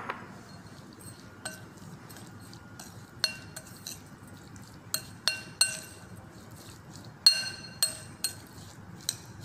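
A metal spoon clinks against a glass mixing bowl while it stirs a thick kiwi-and-almond filling. There are about ten separate ringing clinks, some in quick runs, and the loudest comes about seven seconds in.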